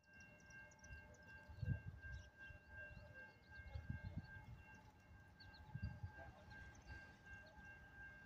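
Near silence: a few low gusts of wind buffeting the microphone, over a faint, steady, high-pitched whine of several tones.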